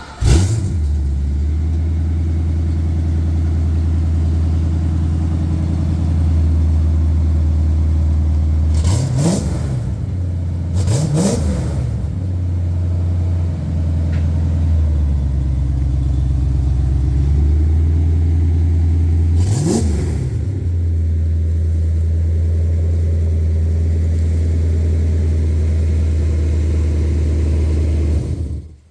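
An engine starts, then idles with a steady low rumble. It is revved three times, twice in quick succession and once more later, the pitch rising and falling each time, and is switched off near the end.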